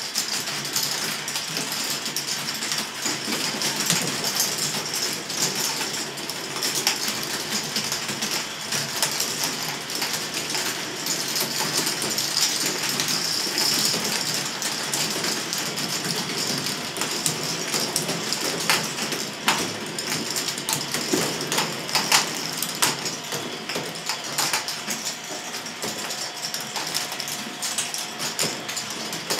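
K'nex ball machine running: plastic balls rolling and clattering along K'nex tracks and lifts, a steady dense rattle broken by frequent sharp clicks. A faint steady whine joins in near the end.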